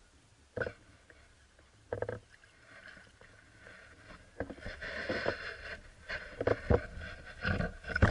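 Two single thumps early on. Then, from about halfway, water splashes and sloshes as a fish is drawn up to the surface and into a landing net, with the loudest splashes near the end as the fish thrashes in the net.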